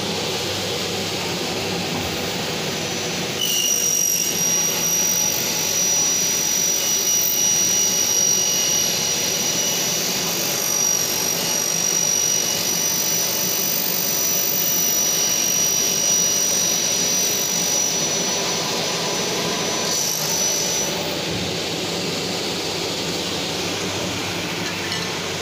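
Saw-head motor of a double-head aluminium cutting machine running with its blade spinning. About three seconds in, a louder high-pitched whine joins it as the blade feeds through an aluminium profile. The cut lasts about 17 seconds, then the whine stops and the motor runs on.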